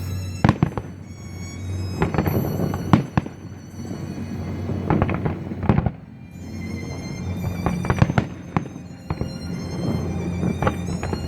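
Fireworks display bursting in repeated sharp bangs, some in quick clusters, over music playing throughout.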